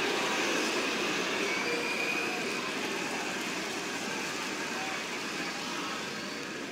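Football stadium crowd noise on a match broadcast: a steady wash of crowd sound that slowly eases off after a shot on goal.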